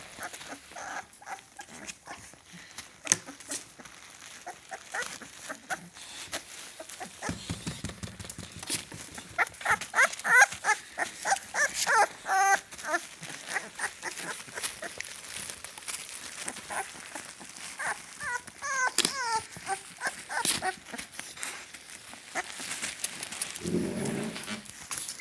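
A litter of 25-day-old puppies whining in short, high calls that come in two clusters, about ten and nineteen seconds in, among many small scattered clicks and knocks. A short low sound comes near the end.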